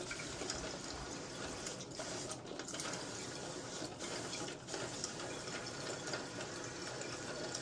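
Toilet tank refilling through a newly installed fill valve, water running into the tank with a steady hiss.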